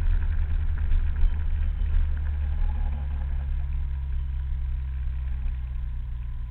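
Scooter engine running on the move, with wind rumbling on the microphone; the engine note sinks slowly and grows a little quieter as the ride goes on.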